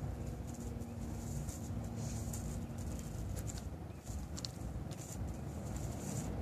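Red fox crunching a chicken thigh bone: irregular crisp crunches about once a second over a steady low background rumble.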